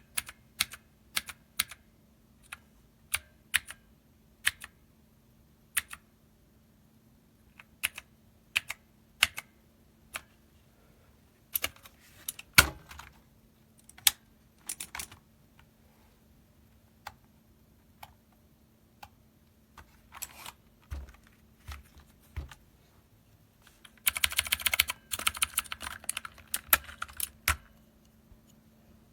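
Dierya T68SE mechanical keyboard with clicky blue switches being typed on: scattered single key presses, one louder knock about halfway through, then a burst of rapid typing for about three seconds near the end.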